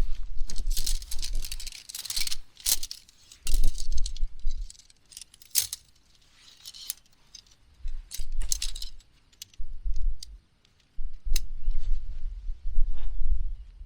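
Small metal items clinking and rattling in irregular bursts of sharp clicks as gear is handled.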